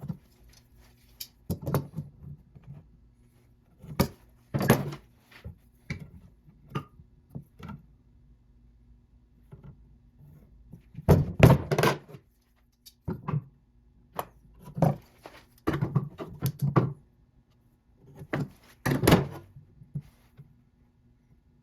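Irregular wooden knocks and thunks, some single and some in quick clusters, as pieces of oak are handled and set down on a hard surface.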